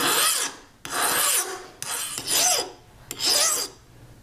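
Flat hand file rasping across a small black-oxided steel anvil point held against a wooden bench pin, in four even strokes about a second apart, rounding the point's top into an arc.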